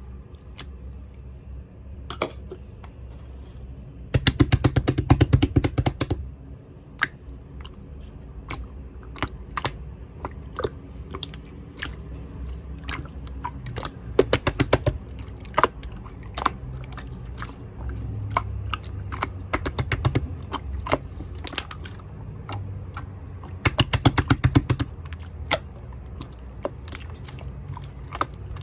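Soft slime being squeezed and kneaded by hand, making sharp wet clicks and pops, with two bursts of rapid crackling popping, about four seconds in and again a few seconds before the end.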